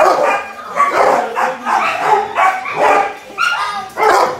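Dogs in shelter kennel runs barking repeatedly, about two barks a second, the barks coming one after another with little pause.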